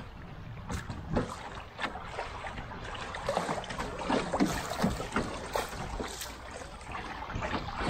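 Shallow, fast quick water rushing and splashing around a canoe's hull, with many short, irregular splashes.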